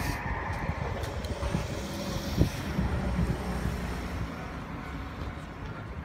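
Rumble of a Keisei electric commuter train fading as it moves away down the line, with a faint high whine dying out in the first second.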